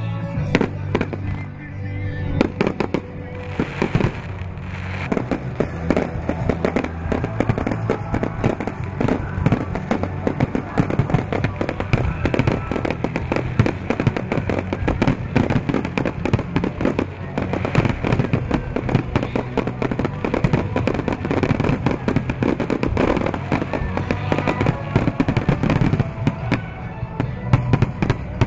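Fireworks display: shells bursting and crackling in quick, irregular succession, over music that plays throughout.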